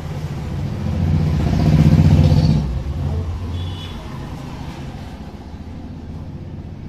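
A motor vehicle's engine passing by, swelling to its loudest about two seconds in and then fading to a low rumble.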